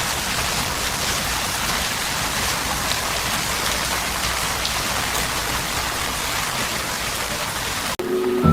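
Steady rain falling, with scattered individual drops ticking. It cuts off suddenly about eight seconds in, and music notes begin.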